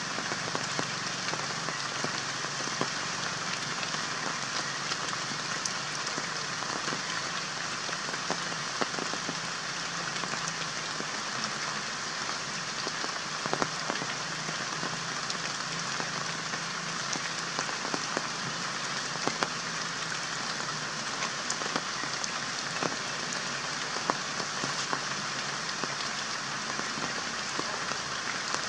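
Steady rain pattering, an even hiss scattered with many small drop ticks.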